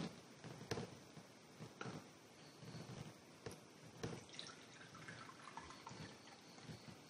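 Coffee poured from a ceramic pot into a ceramic cup, a faint trickle. A few light knocks come first as the pot is picked up.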